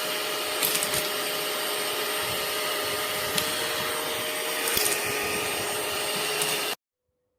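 Mini cordless handheld vacuum cleaner running steadily, with an even motor whine over a rushing hiss and a few brief clicks. It cuts off suddenly near the end.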